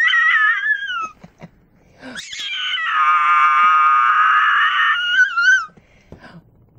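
Teacup chihuahua howling in distress at being left: a short high howl falling in pitch, then after a pause one long wavering howl of about three seconds.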